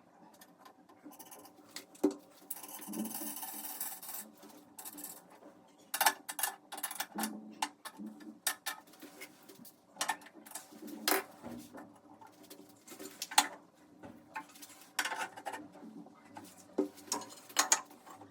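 Hard parts being handled and worked: an irregular string of clinks and knocks, with a scraping noise lasting about a second and a half near the start.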